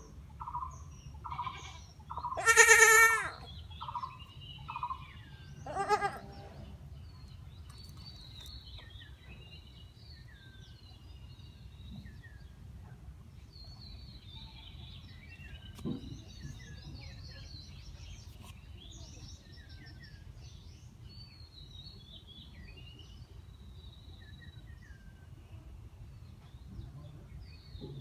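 Goat kid bleating in distress while held down for castration: one loud bleat about three seconds in and a shorter one near six seconds, among a run of short calls in the first few seconds. After that, small birds chirp faintly over a low background hum.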